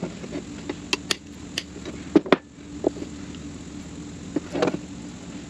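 Small metal clicks and clinks as handbrake shoe parts (adjuster, pins and springs) are handled and fitted onto the brake shoe by hand, about eight sharp ticks scattered through, the loudest a little after two seconds, over a steady low hum.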